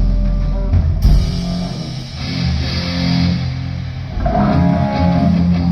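Rock band playing live through an amplified sound system during a sound check: electric guitar and bass guitar holding low sustained notes, with a sharp hit about a second in.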